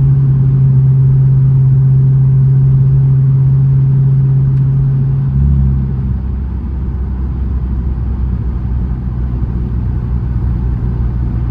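2006 Dodge Charger R/T's 5.7-litre Hemi V8 droning steadily at highway cruise, heard from inside the cabin over tyre and road noise. About five seconds in, the drone drops to a lower pitch and gets slightly quieter.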